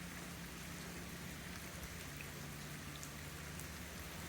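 Faint steady patter of rain and dripping water, with a low steady hum underneath.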